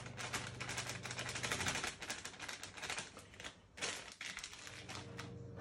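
Dry crumble mix shaken out of its packet onto the fruit: a rapid patter of small ticks with packet crinkling, dense for about two seconds, then sparser shakes and one louder shake nearly four seconds in.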